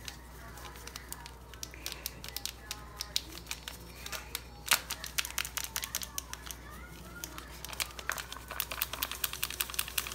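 A grape Jell-O powder packet crinkling and tearing as it is pulled open and shaken out over a bucket, with one loud snap about halfway through and quick dense crackles after it.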